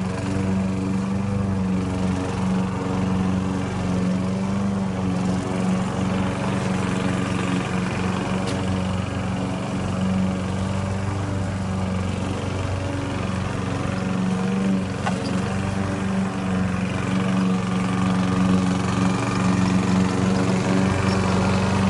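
Husqvarna rotary lawn mower's small petrol engine running at a steady speed as the mower moves over the grass.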